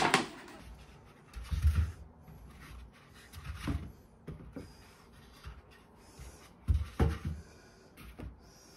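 Household handling sounds: a few dull thumps and packaging rustles as toilet rolls are unpacked from a delivery box and set into a metal wire shelf basket.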